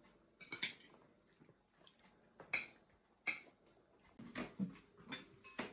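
Spoons clinking against bowls during a meal: a handful of separate, sharp clinks, some with a brief ring.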